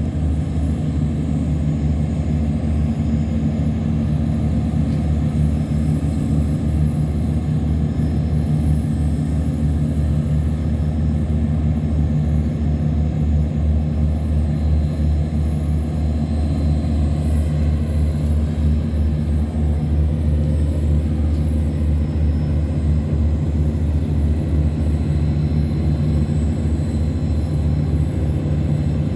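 Loud, steady running of a tugboat's heavy diesel engine under load as it tows cargo barges upstream against the current, with a deep, fast-pulsing low drone.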